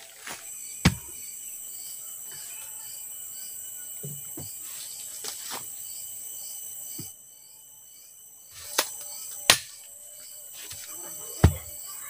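A wooden club knocking a wooden stake into the ground: separate sharp knocks, a strong one about a second in, lighter ones in the middle, and strong ones near the end. Insects drone steadily at a high pitch with a faint repeating chirp.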